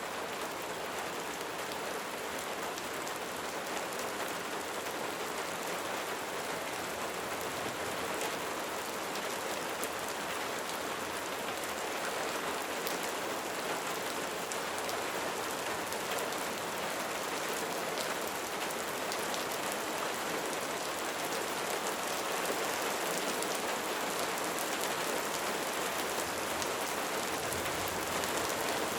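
Light rain falling steadily, a dense even patter of raindrops with fine individual drop ticks.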